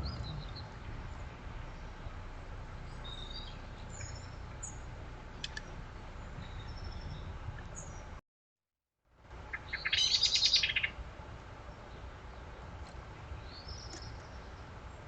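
Small garden songbirds calling with scattered short, high chirps over a low background rumble. The sound breaks off about eight seconds in, then a louder, rapid chattering call lasts about a second, followed by more high calls.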